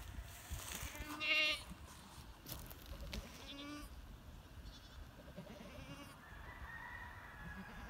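Goats bleating: one loud, wavering bleat about a second in, then two fainter, shorter bleats a few seconds later.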